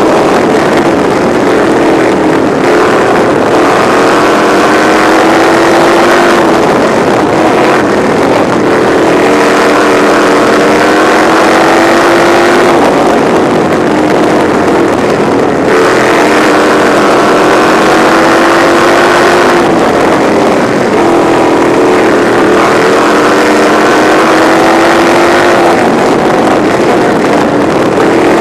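Midwest Lights sprint car's engine heard onboard at racing speed, loud and continuous. Its pitch climbs along each straight and drops as the throttle comes off for the corners, several times over.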